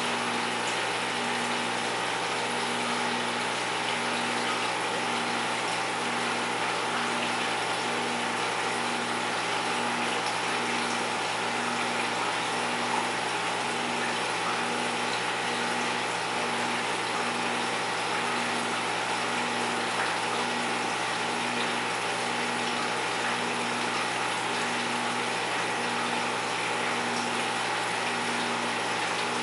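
Aquarium wet/dry sump filter and its return pump running: a steady hum with the hiss of flowing water, and a low tone that pulses about once a second.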